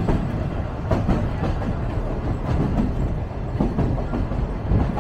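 Sagano Romantic Train running along the track: a steady low rumble with irregular clacks of the wheels over the rails.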